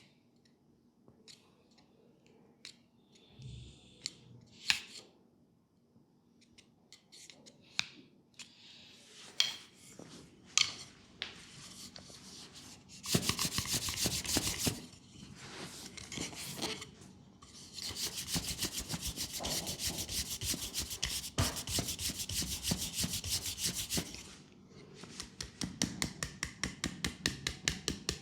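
Hands massaging a leg. After a stretch of scattered light taps and clicks, fast rubbing strokes on the skin start about halfway through and run in two long spells. Near the end they give way to quick, even taps at about five a second.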